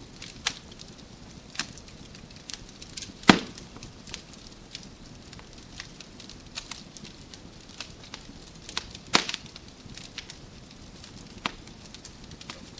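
Wood fire crackling in a fireplace: irregular sharp pops and snaps over a low steady hiss, with two louder pops about three seconds in and about nine seconds in.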